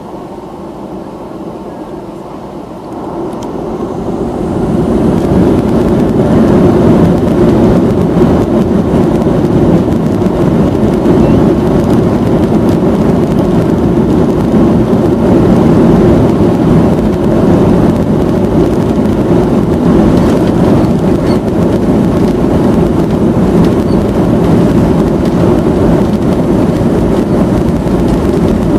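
Boeing 737-800's CFM56-7B jet engines spooling up to takeoff thrust, heard from inside the cabin: a moderate hum swells over a few seconds, starting about three seconds in, into a loud, steady roar that holds through the takeoff run.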